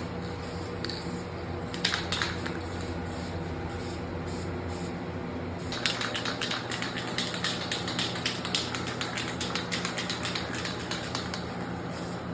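Spray-painting with a spray-paint can. There is a short spray burst about two seconds in, then from about six seconds a long run of quick rattling clicks, over a steady background hum.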